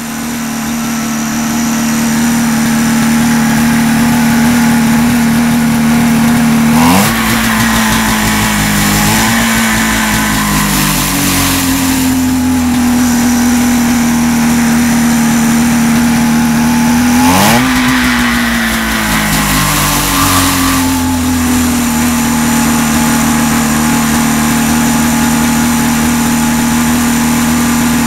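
Rotax 503 two-stroke twin snowmobile engine, freshly set up with cleaned points, a dipped carburettor and a new fuel pump, running steadily on a test stand. It is revved twice, about 7 and 17 seconds in, each time shooting up in pitch and settling slowly back to its steady speed.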